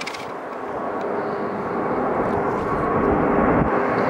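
Airbus A350's Rolls-Royce Trent XWB turbofans at climb power: a steady jet roar with a whine of steady tones in it, growing louder as the airliner climbs out toward overhead.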